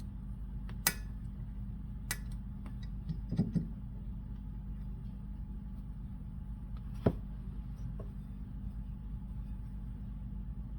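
A few sharp metallic clicks and clinks of tools and small parts being handled while fitting a car's rear brake caliper, spaced out with a short cluster a few seconds in and another near the middle. A steady low hum runs underneath.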